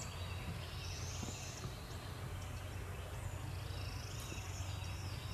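Faint woodland ambience: a steady low rumble with high-pitched bird calls that rise in pitch, about a second in and again near four seconds, and a few short ticks.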